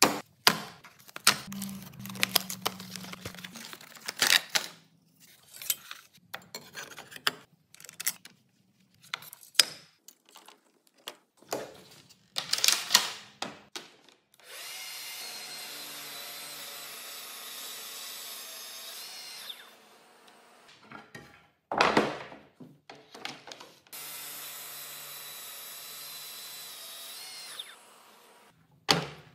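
Clicks and knocks of handling as a blade is fitted to a Festool cordless circular saw, then the saw with its new Freud blade runs through two cuts along a guide rail, each a steady whine lasting a few seconds.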